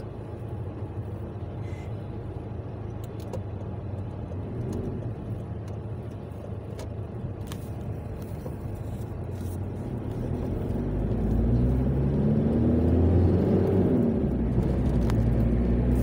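Car engine heard from inside the cabin, running steadily at low revs while the car waits, then accelerating about ten seconds in as the car pulls away, the engine note rising and getting louder.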